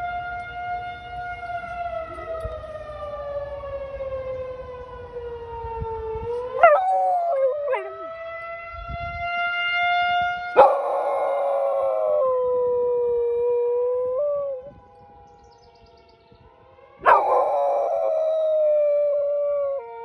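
A tornado siren wailing and slowly falling in pitch, with a dog howling along to it: long howls begin about six seconds in, again about ten seconds in and near the end, with a quieter pause between the last two.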